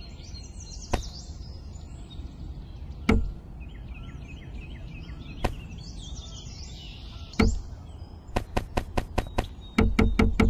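Short sugarcane pieces knocked down onto a stack, one sharp knock about every two seconds, then a quick run of clicks and knocks near the end.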